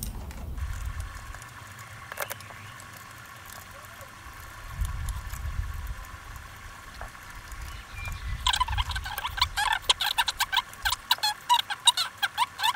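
Fast-forwarded recording audio: a low rumble and a few clicks, then from about two-thirds in a dense run of rapid high-pitched chirps, the garble of speech played several times too fast.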